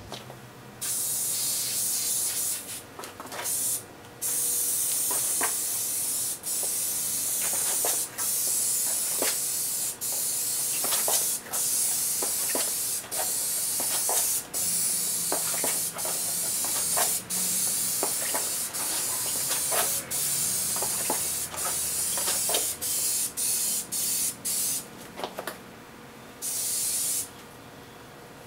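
Duplicolor aerosol spray can hissing in long bursts as clear coat is sprayed, one burst per pass along the panel, with brief breaks between passes and a longer pause near the end.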